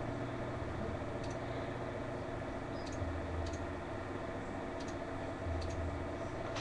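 A few faint computer mouse clicks, spaced irregularly, over a steady low hum: webcam software settings being changed.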